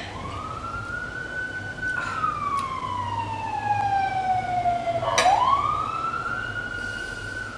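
Emergency vehicle siren wailing: the pitch rises, holds, slides slowly down over a few seconds, then rises again about five seconds in. A few short clinks of a fork on a plate.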